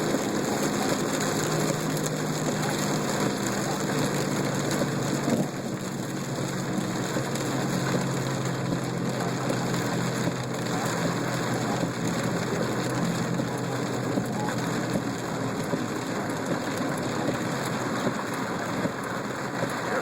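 Steady heavy rain falling on a moving car, heard from inside, over a low engine and road hum that eases a little about five seconds in.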